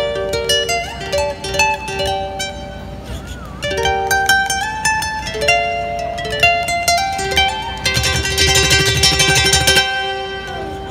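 Solo ukulele playing a picked melody, with a held note that wavers in pitch a little after three seconds in. From about eight seconds in there is a spell of rapid strumming.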